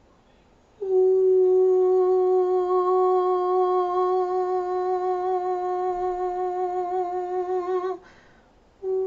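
A woman's voice toning: one long held note that starts about a second in and wavers toward its end, breaks off with a breath about eight seconds in, and a new note begins near the end. It is vocal toning sung as a channelled healing frequency.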